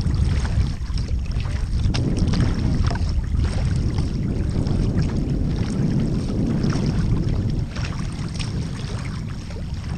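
Wind buffeting the microphone of a kayak-mounted camera, with the splash and drip of double-bladed paddle strokes and water washing along the kayak's hull.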